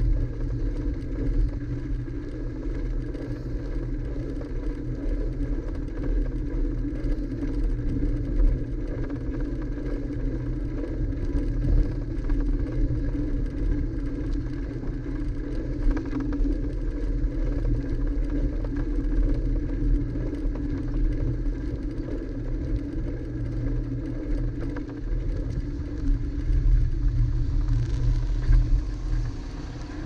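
Steady low rumble from riding a bicycle along an asphalt street, heard through an action camera's microphone: wind on the mic and tyre and road noise.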